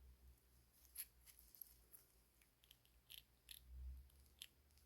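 Faint small metallic clicks and scrapes, about eight spread over the few seconds, from a spark plug gapper worked against a spark plug's ground electrode while setting the gap.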